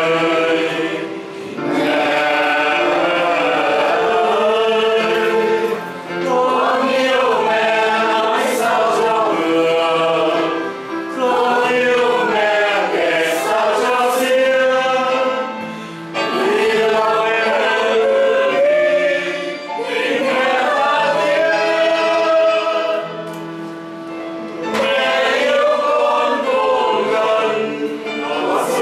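A group of people singing a hymn together, in phrases of a few seconds with short breaks for breath between them.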